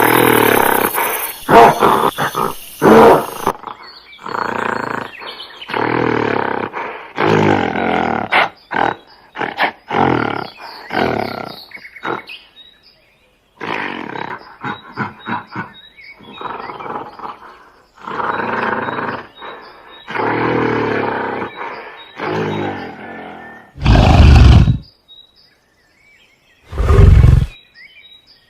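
Gorilla roaring and grunting in a long series of rough calls, each a half-second to two seconds long with short pauses between them. Near the end come a few very loud, short bursts.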